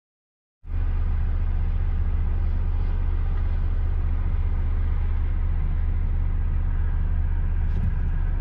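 Steady low rumble of a moving vehicle, cutting in abruptly about half a second in.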